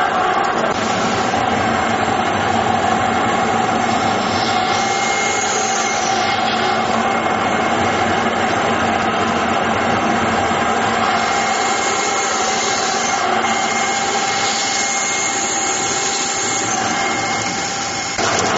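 Verkon PAB-350 vertical two-spindle machine running: a steady mechanical noise with a constant whine.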